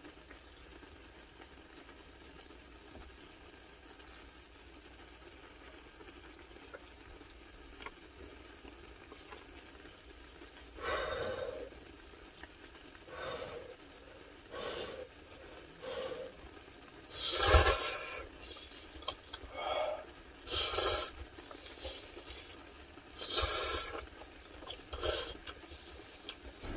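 A faint steady hiss, then from about a third of the way in a run of short, breathy bursts of a person eating hot ramen noodles, about nine in all. The loudest comes about two-thirds through, with a dull knock.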